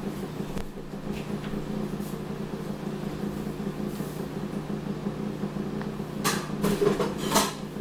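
A steady low hum with a few faint ticks, then near the end two short clatters about a second apart, the loudest sounds, like things being handled in a kitchen.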